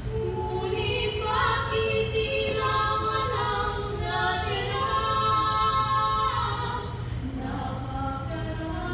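Mixed-voice choir singing a cappella, women's and men's voices in harmony on held chords. The chords swell louder over the first few seconds and ease off about seven seconds in.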